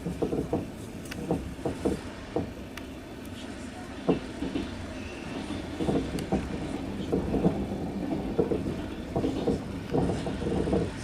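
Passenger train heard from inside the carriage: a steady rumble with the wheels knocking irregularly over rail joints.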